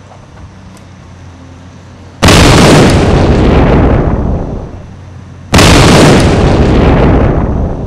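Two huge booms, each hitting suddenly and dying away over about two seconds, about three seconds apart: explosion-like sound effects dubbed over light claw-hammer taps on a brick wall.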